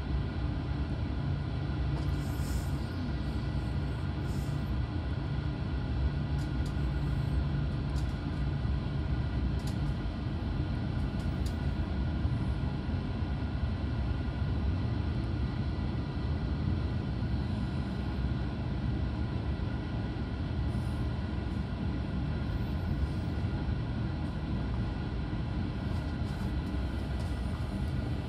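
Steady running noise inside a Belgian Railways I10 passenger coach at speed: the rumble of wheels on the track, with a few faint ticks.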